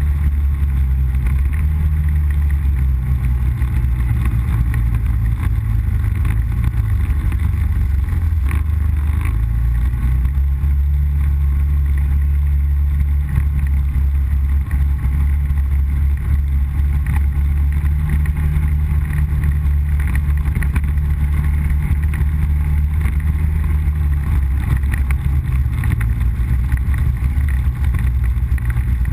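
ATV engine running as it rides along the trail. Its low drone steps up in pitch about a third of the way in and drops back near the end as the throttle changes.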